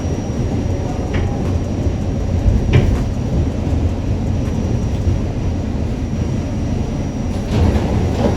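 New York subway train running, heard from inside the car: a loud, steady rumble of wheels on the track, with a few sharp knocks, one about three seconds in and another near the end.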